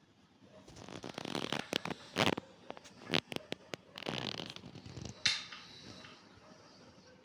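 Rustling and sharp clicks close to the microphone, the handling noise of a phone being moved about in the hand. It comes in bursts through the first few seconds, with a last click about five seconds in.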